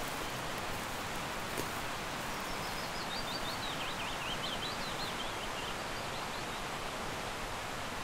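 Steady rush of a fast-flowing stream running high, with a small songbird singing one warbling, trilling phrase through the middle.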